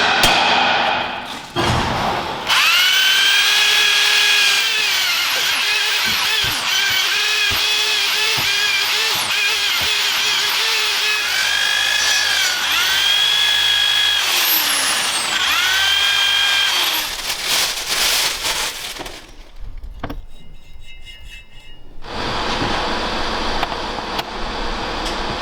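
Handheld power tool running in long stretches, its whine sagging in pitch and recovering several times as it takes load, then stopping.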